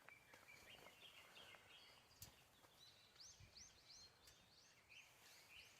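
Faint bird song: a long run of short, high chirps repeated a few times a second, the notes sweeping sharply upward in the second half.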